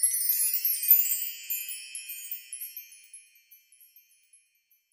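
A shimmering wind-chime sound effect: a cascade of many high tinkling notes that fades away over about three seconds, with a few last faint pings.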